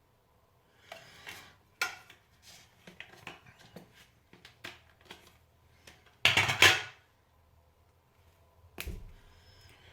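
Small steel blackhead-removal tools and their metal tin being handled: scattered light clicks and taps of metal on metal, with one louder rattle about six and a half seconds in.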